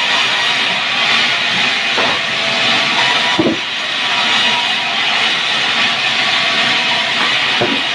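Saw cutting through a log: a steady hissing noise, with a few short falling squeals.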